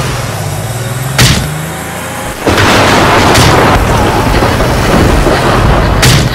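Cartoon sound effects: a low engine-like hum, a sharp bang about a second in, then a loud noisy rushing sound from about two and a half seconds on, and another sharp bang near the end.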